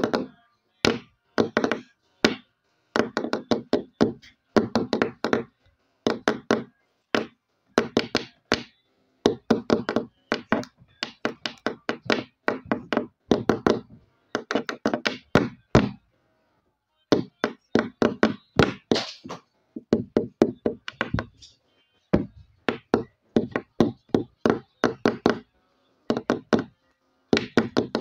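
Rhythmic knocking and tapping: quick runs of sharp strokes, several a second, in bursts of about a second separated by short pauses, tapping out a song's backing beat.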